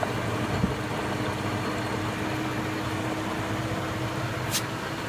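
Indesit 092 washing machine running empty on a Cotton 95 maintenance wash: a steady low motor hum with a faint steady tone above it, and one short sharp click near the end.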